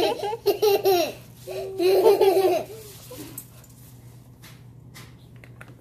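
A young boy laughing in two bouts of choppy giggles, stopping about three seconds in.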